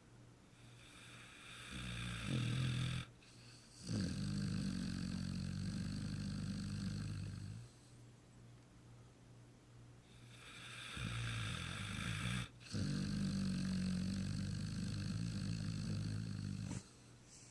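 Pit bull snoring loudly in his sleep: two long snoring breaths a few seconds apart, each broken by a brief pause partway through.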